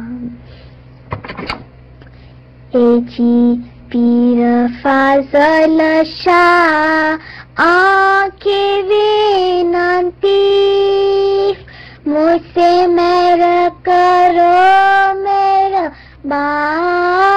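A solo high voice singing an Ismaili ginan, a devotional hymn, in long held, slightly wavering notes. A phrase ends at the start, and the singing picks up again after a pause of about two and a half seconds.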